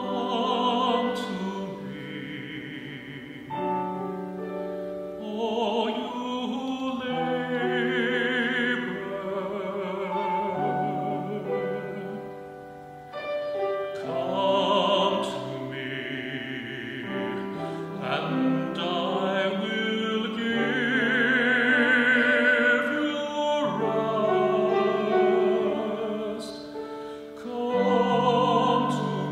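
Sacred song sung by a solo voice in classical style with strong vibrato, over piano accompaniment, in several long phrases.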